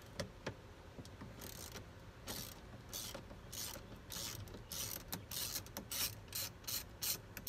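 Socket ratchet wrench clicking in repeated short strokes as it backs out the 10 mm bolt behind the interior door handle; the strokes come faster toward the end.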